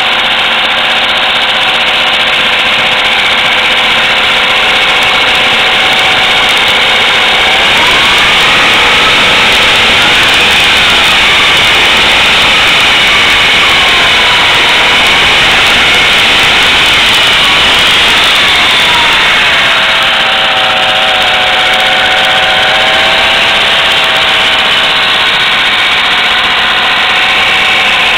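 1980s Honda 10 hp four-stroke outboard motor running steadily. About 7 seconds in it revs up and its speed rises and falls for roughly 12 seconds, then it drops back to a steady lower speed.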